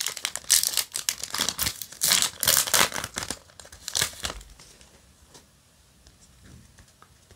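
Foil booster-pack wrapper crinkling and tearing as it is ripped open and the cards are pulled out. The crinkling stops about four and a half seconds in, leaving only faint handling ticks.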